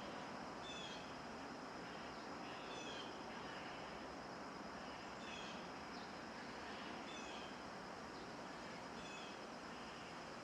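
Steady wind noise, with a bird repeating a short, high, slightly falling chirp about every two seconds.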